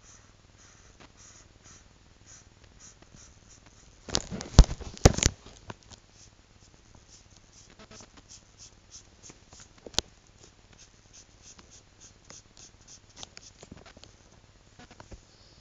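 Felt-tip marker scratching on paper in quick, repeated colouring strokes. About four seconds in there is a loud burst of knocks and rustling lasting a second or so, and a single sharp click near the middle.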